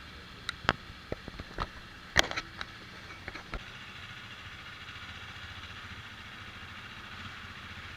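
An engine idling steadily, with a scatter of sharp clicks and knocks in the first few seconds.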